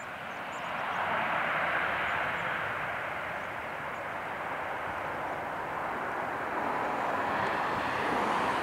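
Airbus A321-231's twin IAE V2500 turbofan engines rushing steadily as the airliner rolls out along the runway just after landing. The sound swells about a second in and again near the end.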